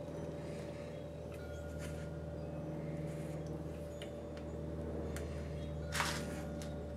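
A steady low hum under faint clicks and taps from a plastic brake fluid bottle being handled over the master cylinder, with a short scuffing noise about six seconds in.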